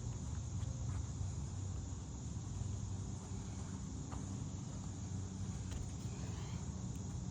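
Steady low hum under an even high hiss, with a few faint clicks.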